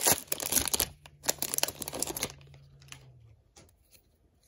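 Wrapper of a Topps Update baseball card pack being torn open and crumpled by hand: dense crinkling and tearing that thins out after about two seconds and dies away.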